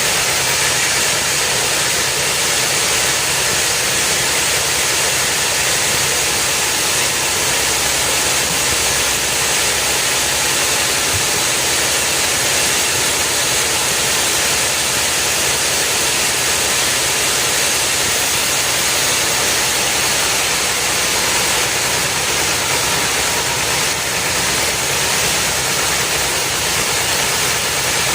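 A machine running steadily, a loud unbroken hissing noise with no change in pace or pitch.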